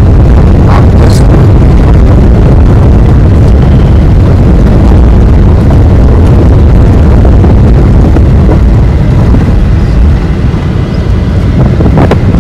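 Loud, steady low rumble of a moving vehicle.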